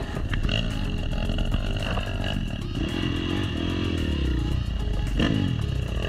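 Dirt bike engine revving up and down, its pitch rising and falling repeatedly.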